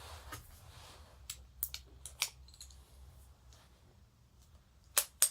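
Old Yale padlock worked with its key: a few light metal clicks in the first couple of seconds, then two sharper clicks close together near the end. The lock works smoothly.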